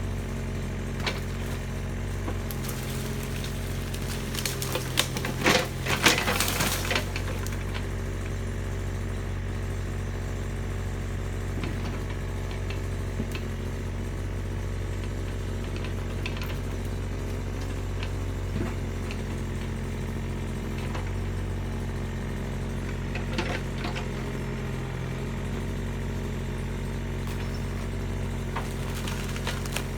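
Mini excavator's diesel engine running steadily with a low hum. About five to seven seconds in there is a loud burst of cracking and splintering wood, with a few lighter knocks later.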